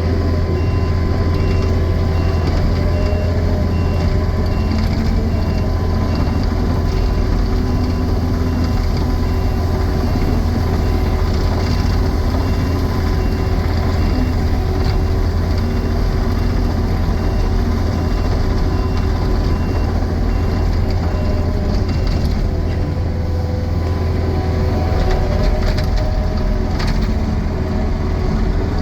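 Takeuchi TL12 track loader's diesel engine running steadily, with its reversing alarm beeping at an even pace for about the first twenty seconds.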